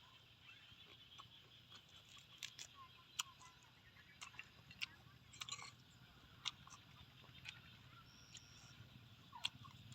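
Quiet background with scattered light clicks and a few faint, brief animal calls.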